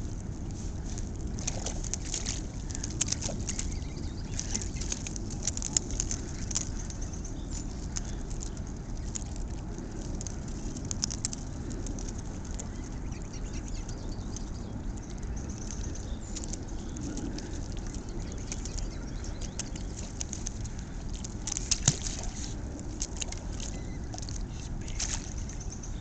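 Canada geese feeding among shoreline rocks: scattered sharp clicks and taps, with a few louder ones a little past three-quarters of the way through, over a steady low rumble.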